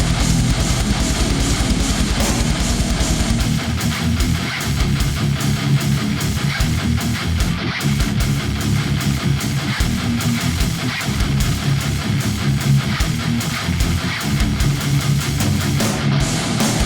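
Thall-style heavy metal music with heavy, distorted electric guitars. A held low note gives way about three and a half seconds in to a stop-start chugging rhythm in the low end.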